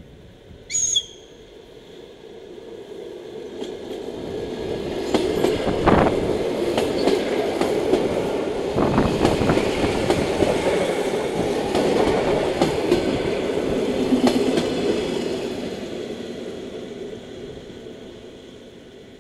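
ER2T electric multiple unit, four cars long, departing and passing close by. Its rumble and wheel clatter over the rail joints build, stay loud while the cars go past, and then fade as it moves away. About a second in there is a brief high whistle.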